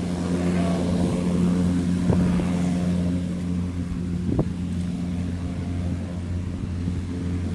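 An engine running steadily with a low, even hum, with two short sharp clicks about two seconds and about four and a half seconds in.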